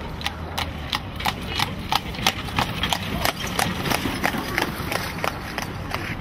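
Horse's hooves clip-clopping on cobblestones as a horse-drawn carriage passes, about three steps a second, loudest midway and fading near the end.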